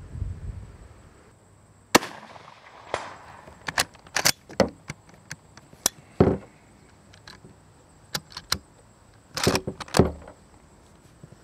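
Arisaka Type 38 bolt-action rifle firing a 6.5x50 Jap round about two seconds in, a sharp crack with an echoing tail. It is followed by a run of metallic clicks from the bolt being worked, a second loud bang near the middle, and more bolt clicks near the end.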